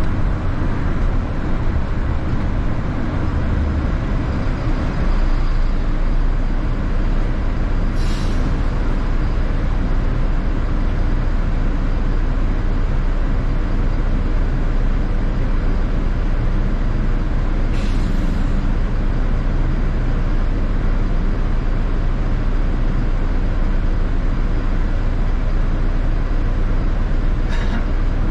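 City bus running, its engine and road noise heard from inside the bus as a steady low rumble. Three brief hisses break through, about ten seconds apart.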